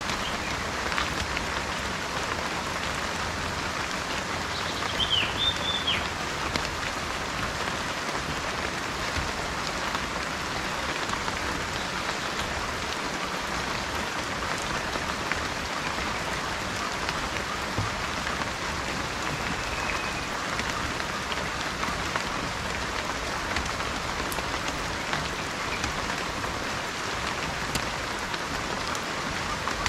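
Steady rain falling, a dense even hiss of many small drops. A bird calls briefly about five seconds in, and faintly again around twenty seconds.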